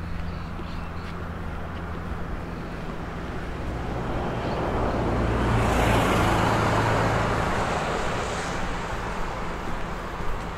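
A car driving past: its engine hum and tyre noise swell to a peak about six seconds in, then fade away.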